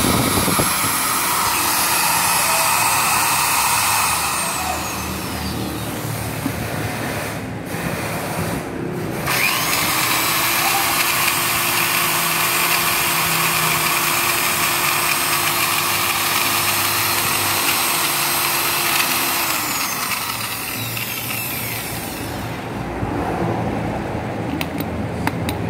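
Two corded 100 V electric drills run free with empty chucks, one after the other. A Ryobi drill whines up, runs a few seconds and spins down. After a short pause a National drill starts, runs for about ten seconds and winds down.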